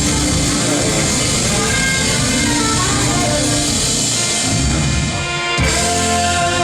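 Live band playing an instrumental passage with drums and held chords, without vocals. Near the end it drops out for a moment, then comes back in on new held chords.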